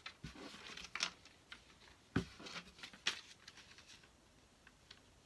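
A small paper card being handled and opened: soft, scattered paper rustling and crinkling, with a dull knock about two seconds in.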